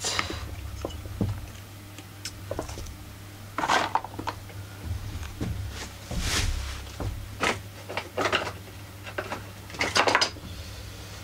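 Scattered clicks, taps and light scrapes of plastic and metal parts being handled while a Husqvarna 44 chainsaw is taken apart around its carburettor, over a low steady hum.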